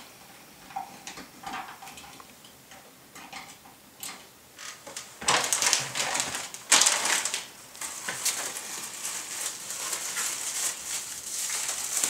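Handling noise: faint clicks of wires and plastic wire nuts being pushed into a ceiling electrical box, then from about five seconds in a long stretch of dense crinkly rustling with many small clicks.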